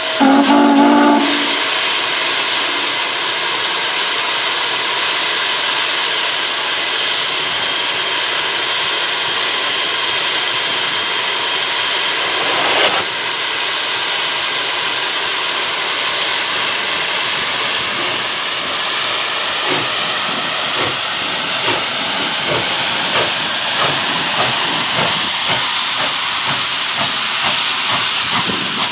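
A steam whistle chord cuts off about a second in, then steady loud steam hissing from the Norfolk and Western J-class 611 steam locomotive. Uneven short puffs come through over the last ten seconds or so.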